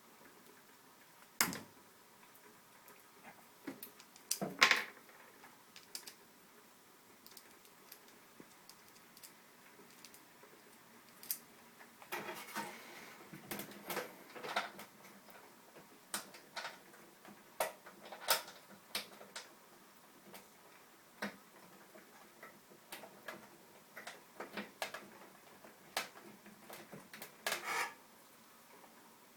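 Scattered clicks, taps and short scrapes of a Phillips screwdriver working a small screw back into a microwave's light-bulb holder, with a quieter stretch between them.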